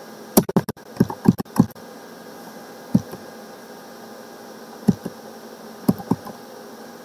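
Computer keyboard keystrokes: a quick run of about a dozen key presses in the first two seconds, then a few single presses spread out, over a steady hiss and hum.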